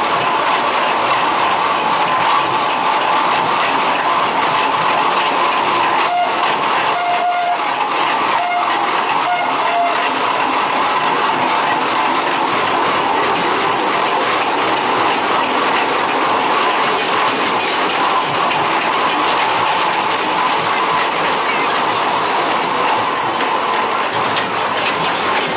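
Steam traction engine running steadily as it passes close by, towing a trailer on iron-rimmed wheels. A few short, faint tones sound about six to ten seconds in.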